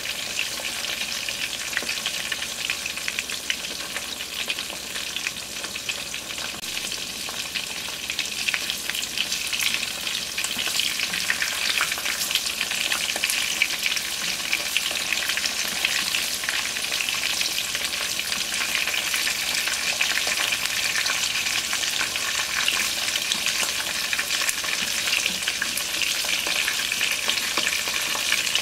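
Pork-stuffed fried tofu sizzling and crackling in hot oil in a pan, the dense crackle getting a little louder about ten seconds in.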